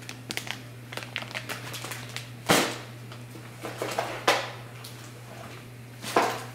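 Grocery items and their packaging being handled: a run of small clicks and taps, with three brief rustling swishes, over a steady low hum.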